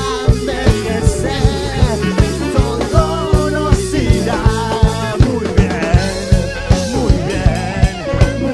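Live Latin fusion band playing an up-tempo song: drum kit and hand percussion keep a steady driving beat under guitars, keyboard and melodic lines.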